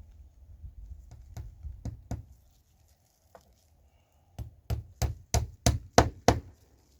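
Hand hammer driving a nail into wood: a few light taps, then about eight firm blows at roughly three a second.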